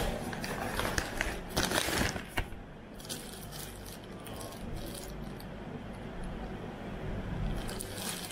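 Clear plastic packaging crinkling and rustling as a bagged parcel is handled, in irregular bursts: loudest from about half a second to two and a half seconds in, quieter in the middle, and again near the end.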